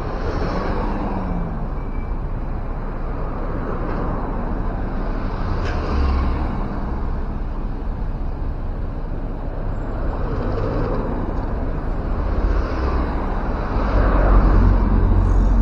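Road traffic with city buses and cars passing one after another over a constant low engine rumble. A brief sharp click comes about six seconds in, and a deeper, louder engine rumble builds near the end as a heavy vehicle comes close.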